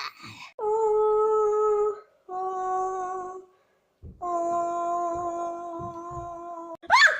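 A voice humming three long held notes, each lower than the one before, like a dramatic 'dun, dun, dunnn'. A brief high squeal comes near the end.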